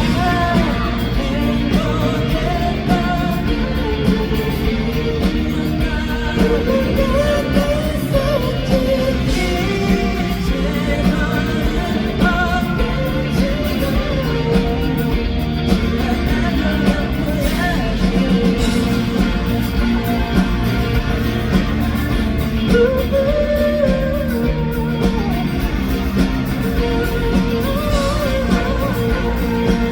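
Live pop-rock band performing with a lead singer over electric guitar, bass and drums, loud and continuous through a concert PA.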